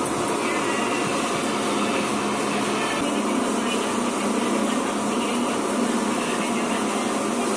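Steady rushing air of powder-coating equipment: a powder-coating spray gun blowing powder onto a cast-iron engine cylinder barrel.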